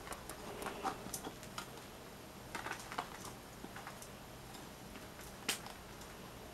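Scattered faint clicks and taps from pet rats nosing and pawing at the wooden blocks of a treat puzzle toy, with one sharper click near the end.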